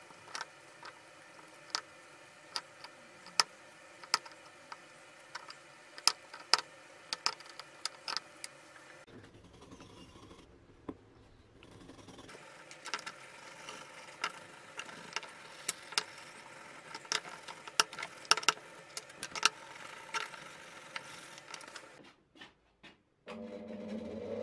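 A brush working paint stripper over an old drill's aluminium gear housing, with scattered sharp taps and clicks of the brush against the metal, then a stiff brush scrubbing with a scratchy rasp. Near the end a bench grinder's motor switches on and hums as it spins up.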